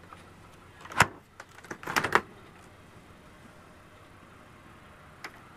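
RV refrigerator doors being opened by hand: a sharp clunk about a second in, then a quick run of clicks and rattles around two seconds in.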